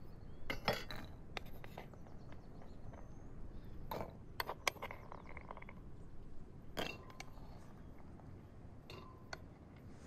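Clay pots and bowls clinking and knocking as they are handled and set down on a table: several short, light knocks at irregular intervals.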